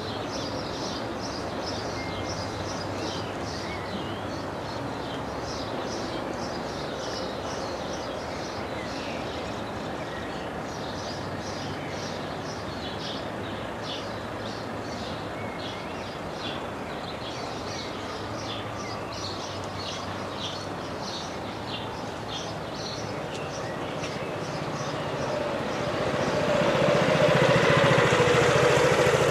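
Italian level crossing warning bells ringing in a steady, even rhythm while the barriers are down, signalling that a train is due. An engine grows louder over the last few seconds.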